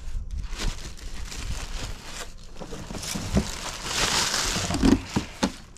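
Cardboard packaging scraping and rustling as an inner carton is pulled out of a shipping box, with a few dull knocks; the rustling is loudest about four seconds in.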